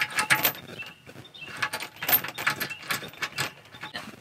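Steel safety chain clinking and rattling as it is handled, a run of irregular metallic clinks.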